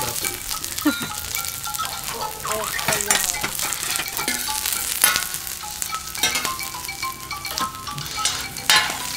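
Onion sizzling as it fries in hot oil in a pan, with the scrape and knock of a spatula stirring it several times.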